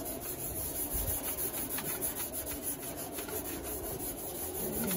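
Green abrasive scrub pad rubbing back and forth over a bare steel car fender, scouring metal-etch solution into the surface and its pits. Steady scratchy scrubbing made of repeated strokes.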